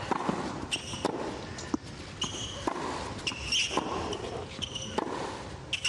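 Tennis rally on a hard court: the ball is struck back and forth by rackets about once a second, with several short high squeaks of players' shoes on the court surface between the strokes.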